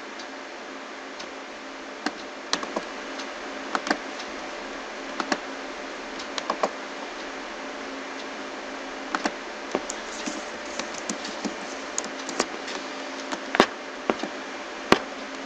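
Scattered clicks and taps of a computer mouse and keyboard, irregular and a second or so apart, over a steady background hiss.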